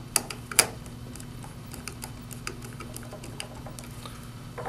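Small screwdriver turning the clamp screws of a motor drive's screw terminal block as a wire is fastened in. Two sharp clicks about half a second apart in the first second, then a run of faint light ticks, over a low steady hum.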